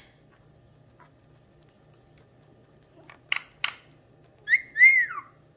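About three seconds in, a few sharp clicks, then a short high parrot call that rises and falls, in two parts.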